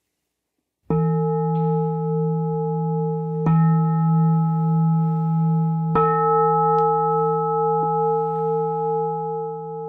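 A meditation bowl bell struck three times, about two and a half seconds apart. Each strike rings on in a long, steady tone that overlaps the next and slowly fades, marking the close of the talk.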